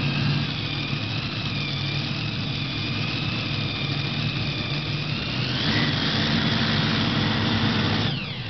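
Modified multi-engine pulling tractor idling at the start line: a steady low engine note under a high, steady whine. A little over five seconds in the engines pick up, louder and higher, then the sound briefly dips near the end.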